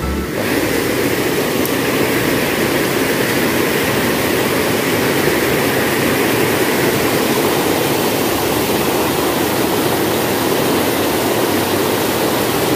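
Stream water rushing steadily over a small weir and rocks, a loud, even white-water noise.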